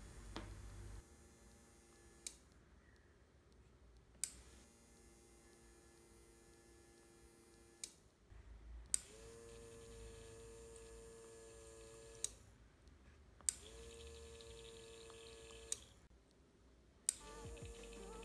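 A 12 V relay on a water-level controller board clicking on and off about eight times. Each switch-on starts a small DC water pump's motor, which runs with a steady whine for a few seconds until the next click cuts it off. The relay switches as the level-sensing probe wires touch and leave the water.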